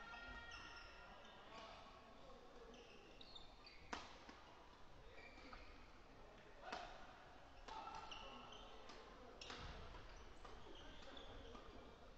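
Faint badminton doubles rally on an indoor wooden court: several sharp racket-on-shuttlecock hits a few seconds apart, the clearest about four seconds in, with short shoe squeaks on the floor and distant voices echoing in the hall.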